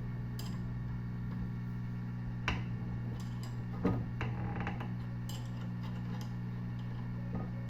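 Heat gun running with a steady hum, with two sharp metal knocks about two and a half and four seconds in as the heated pulley is worked loose on the washing machine shaft.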